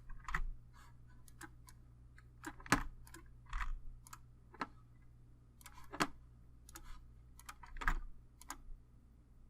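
Typing on a computer keyboard: irregular single keystrokes with short pauses between them, as when entering a login.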